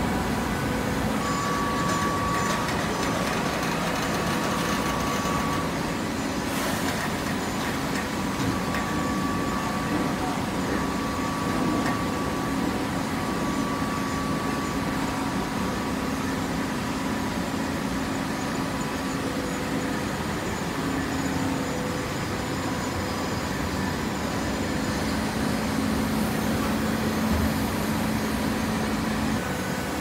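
TCM horizontal hydraulic baler running: a steady machine hum from its hydraulic power pack, with a higher whine that comes and goes.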